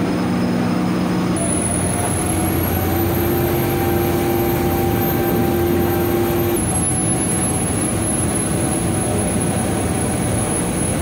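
Star Ferry's engine running steadily as the boat gets under way: a low hum with a few steady tones over a broad wash of noise, one tone stepping up a little in pitch a few seconds in.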